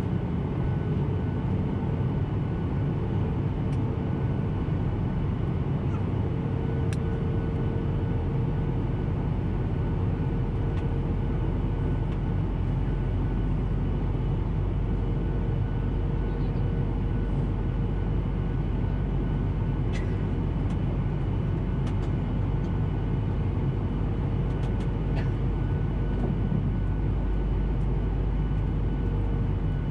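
Steady cabin noise inside a Boeing 737-800: its CFM56-7B jet engines and rushing air make a low rumble with a steady whine in it. A few faint clicks come about two-thirds of the way through.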